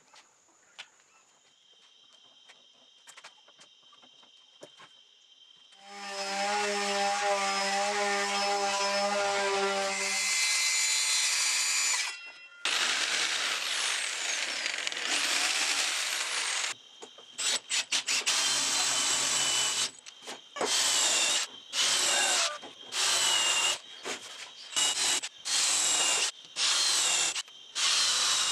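Power tools working wood: after a few seconds of light knocks, a jigsaw runs and cuts through a wooden panel for several seconds. Then an electric drill bores holes in the panel in a string of short bursts, its motor whining up each time.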